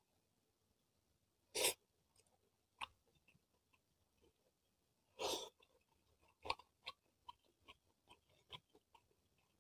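Quiet eating-by-hand sounds: fingers pulling apart soft boiled fish and pressing it into cooked rice on a plate. Two brief louder sounds come a few seconds apart, then a run of small sticky clicks near the end.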